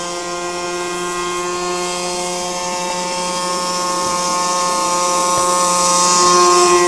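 A radio-controlled airboat's model engine and air propeller running at speed, a steady, even-pitched drone with many overtones. It grows louder toward the end as the boat comes closer.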